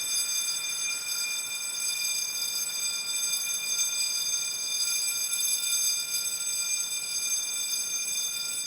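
Burglar alarm sounding continuously: a steady high ringing made of several fixed tones, unbroken and without any rise or fall in pitch.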